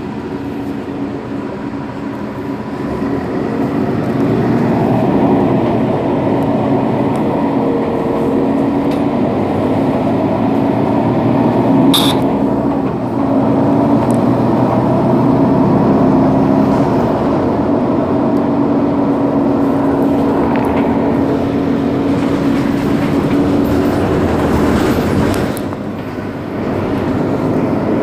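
Mercedes-Benz Citaro city bus's rear-mounted OM 457 hLA six-cylinder diesel idling at standstill, a steady hum heard from behind the bus. It grows louder about four seconds in and stays up, with one short sharp click about twelve seconds in.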